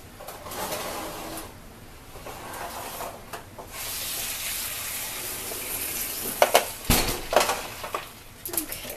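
Hot roasted turkey sizzling in a foil roasting pan as it is pulled from the oven, with a steady hiss through the middle. Around seven seconds in come a few clanks of the pan and rack and one dull thump.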